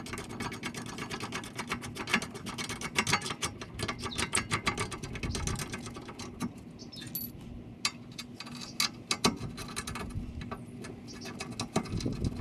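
Quick metallic clicking and rattling of brake hardware and tools as the rear brake caliper mount is set in place and its two bolts are started. The clicks are dense for the first half and sparser after about six seconds, over a low steady hum.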